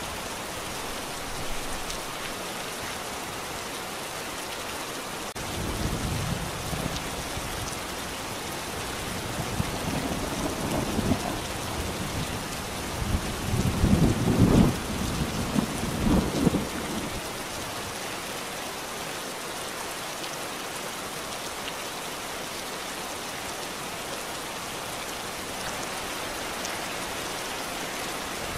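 Steady rain, with rolling thunder rumbling twice: briefly a few seconds in, then longer and louder around the middle before dying away.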